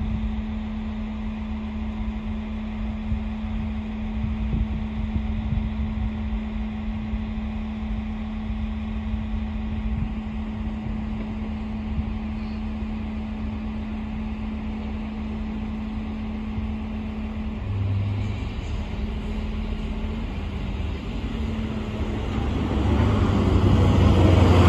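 A steady low hum over a low rumble with frequent short thumps, then a DSB IC4 diesel multiple unit coming up and passing close by near the end, growing loud.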